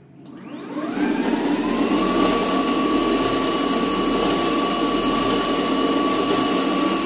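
Extreme Bull K6 electric scooter's motor spun up at full throttle with the wheel free of the ground. A whine rises over about the first second, then holds steady at top speed over a rushing noise.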